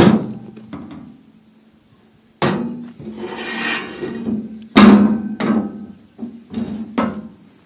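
The steel frame and tines of a homemade digging fork clank and knock against a painted steel box top as it is handled. Each knock rings briefly; the loudest comes about five seconds in, and there is a scraping rattle around three to four seconds in.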